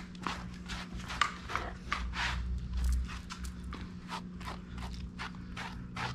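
A dog brush drawn again and again through a Bernese Mountain Dog's long tail coat: short scratchy strokes, about three a second.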